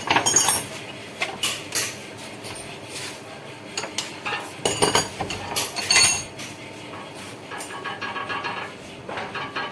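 Metal tools and parts clinking and knocking while a front shock absorber is worked on: several sharp metallic strikes with a ringing tail, the loudest near the start and around the middle, then a run of quicker light rattles near the end.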